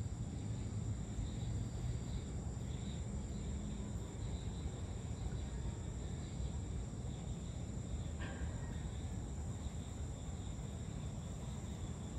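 Outdoor evening ambience: a steady low rumble from a distant town with faint insect chirping, and one brief chirp-like call about eight seconds in.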